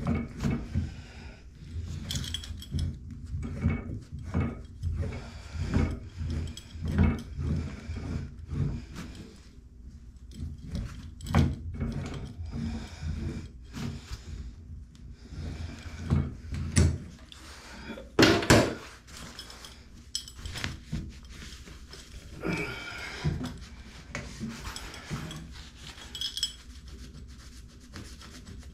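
Hands working at a copper tub-spout pipe stub in a tiled wall: irregular rubbing and scraping with scattered knocks, the loudest about 18 seconds in.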